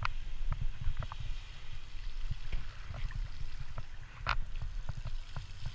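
Wind buffeting the microphone of a bicycle-mounted action camera as the bike rolls along a road, with scattered clicks and rattles from the bike and camera mount over bumps. One louder knock comes about four seconds in.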